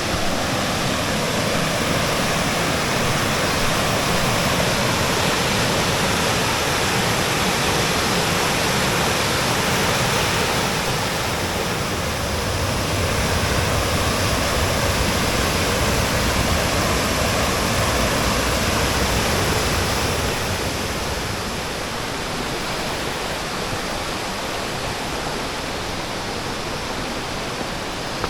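Waterfall rushing steadily: a dense, even noise of falling water. It shifts in character twice and becomes somewhat quieter about twenty seconds in.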